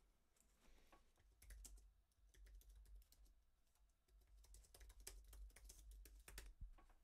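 Faint typing on a computer keyboard: irregular runs of quick key clicks.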